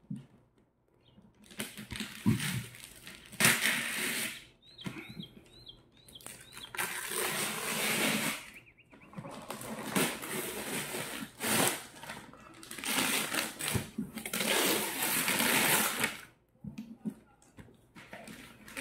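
Gift-wrapping paper being ripped off a box in about six long tearing bursts with short pauses between, as strips of adhesive tape are pulled away with it.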